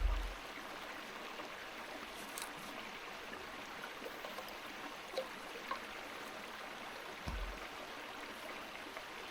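River water flowing steadily, with a few faint ticks and two brief low thumps, one at the start and one about seven seconds in.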